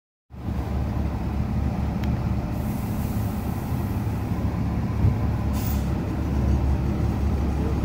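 Steady low rumble of city street traffic and idling heavy vehicles, with two short hisses of air, the longer one about two and a half seconds in and the other near the end, typical of a bus's air brakes.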